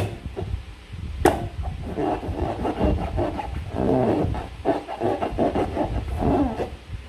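Slime being handled in rubber balloons, with irregular squishing and rubbing and a sharp click about a second in.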